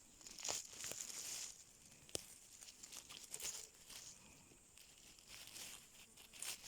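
Faint rustling and crinkling of grass and leaves being pushed through, with a few sharp clicks or snaps.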